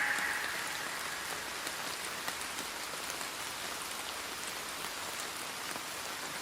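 Steady rain falling, with scattered small drop ticks; the last note of a song fades out in the first half second.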